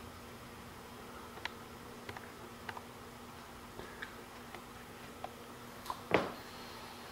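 Faint steady hum in a small room, with a few soft ticks and one dull thump about six seconds in.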